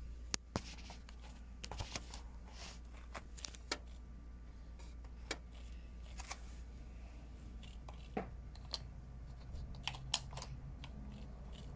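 Small plastic toy figures clicking and tapping as they are picked up and set on a plastic toy seesaw, in scattered light knocks over a low steady hum.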